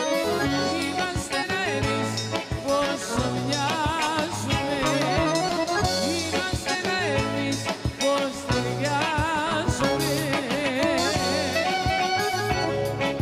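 Live Greek folk band playing an instrumental passage, with the clarinet leading in fast trilled ornaments over keyboard, bass and a steady drum beat.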